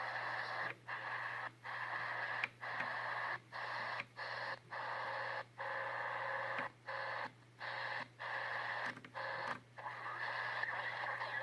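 Weird noise signal on 3700 kHz from a shortwave receiver: a steady noisy signal that drops out briefly at irregular intervals, about every half second to a second, over a steady low hum.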